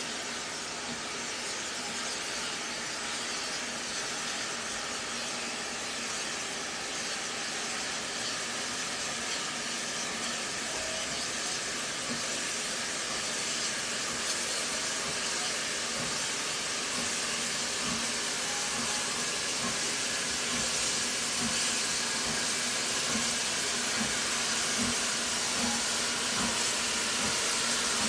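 Steam hissing from the BR Standard Class 4 4-6-0 steam locomotive 75069 as it approaches, growing steadily louder, with a few faint knocks in the second half.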